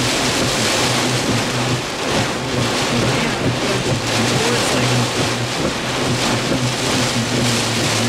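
Severe thunderstorm wind and rain lashing a vehicle, heard from inside it: a loud, unbroken rushing with gusty surges over a steady low hum.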